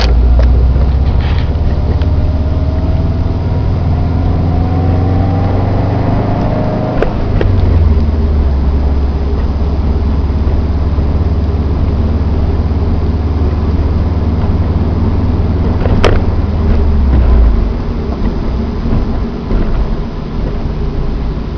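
2009 Subaru Impreza WRX STI's turbocharged flat-four engine running, with a whine rising in pitch over the first seven seconds. A click comes about seven seconds in, after which the drone holds steady. There is another sharp click later, and the low drone drops away near the end.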